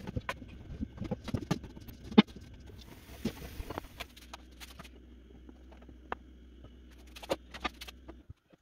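Scattered light taps and clicks of food and kitchen utensils being handled, busiest in the first half. A low steady hum comes in about halfway and cuts off abruptly near the end.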